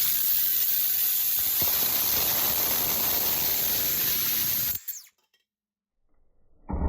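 DeWalt DCS438 cordless cut-off tool with its abrasive wheel cutting, a steady harsh hiss. It stops suddenly a little under five seconds in, leaving dead silence until a new whining sound starts near the end.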